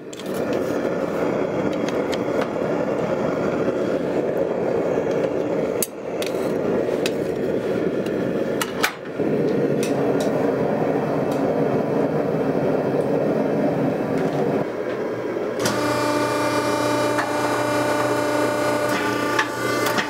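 Propane forge burner running with a steady rushing noise, broken briefly twice. About fifteen seconds in it gives way to the steady, even-toned hum of an H-frame hydraulic forging press's motor and pump running.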